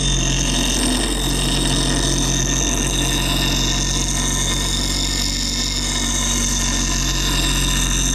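Bench grinder running with a rusty steel knife blade held against its wheel: a steady motor hum under the even noise of grinding.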